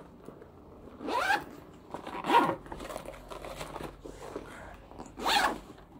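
Zipper on a canvas backpack being pulled three times in short strokes.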